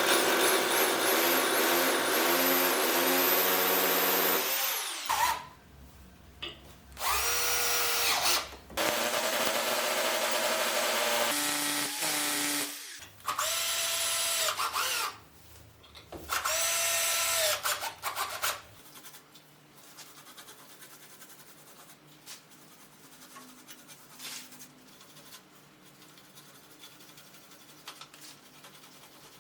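Power drill run in about five bursts, each spinning up to a steady whine and then stopping. After the last burst, only faint light knocks and handling noises are heard.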